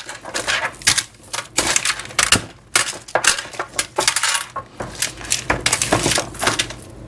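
Cut potatoes being mixed with olive oil in a pan: irregular clattering, clinking and scraping.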